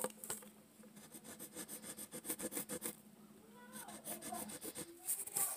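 Colored pencil scratching on paper in quick, short strokes while tracing lines.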